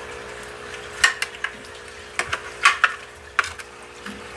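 A string of sharp plastic clicks and knocks, mostly between about one and three and a half seconds in, as a hand handles a running hang-on-back aquarium filter on a glass tank. Behind them are the steady splash of the filter's outflow and a low hum.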